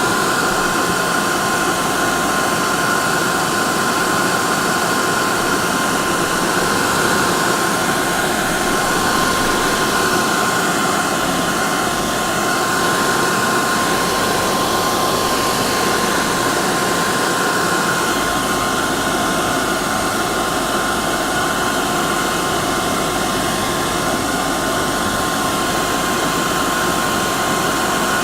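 Hair dryer running steadily: a constant rush of blowing air with a steady high whine from its fan motor, played as continuous white noise for soothing a colicky baby to sleep.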